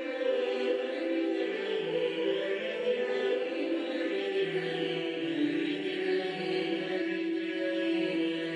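Background music: choral chant sung in long held notes, moving slowly from pitch to pitch.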